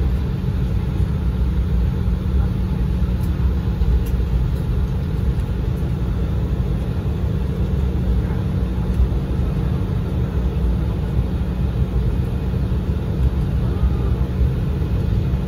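Steady low rumble inside the cabin of an Embraer 175 regional jet taxiing on the ground, its engines at idle.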